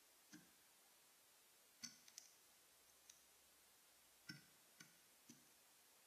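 Faint, sharp pecking taps, about eight in all, some in quick pairs: a house sparrow's beak striking seed and the plastic tray of a Bird Buddy smart feeder, picked up by the feeder's built-in microphone.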